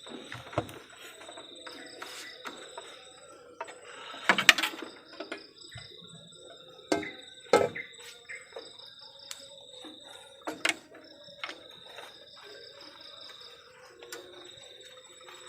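Crickets chirping steadily at a high pitch, with scattered knocks and clatters from handling things, the loudest about four and a half seconds in.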